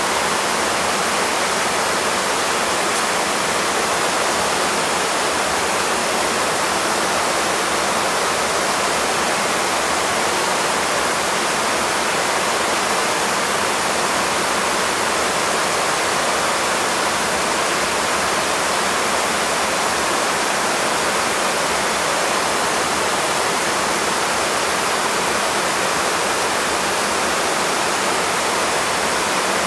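Shallow river rushing steadily over rocks in rapids: a constant, even roar of white water with no bird calls heard above it.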